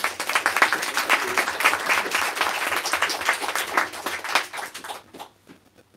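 Audience applauding: many hands clapping at once, which dies away about five seconds in.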